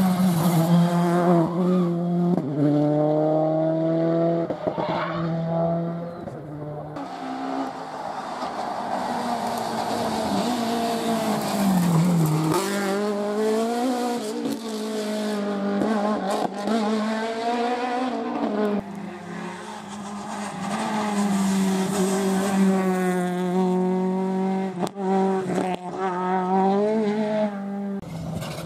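Several rally cars in turn, driven fast, engines revving hard and rising and falling in pitch through gear changes and braking.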